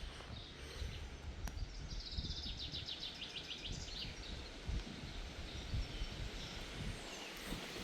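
Outdoor ambience with an uneven low rumble of wind on the microphone. A small songbird sings a rapid trill of short, evenly spaced high notes about two to four seconds in.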